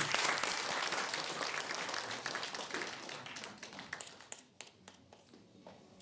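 Audience and panelists applauding, the applause dying away over about four seconds into a few scattered claps.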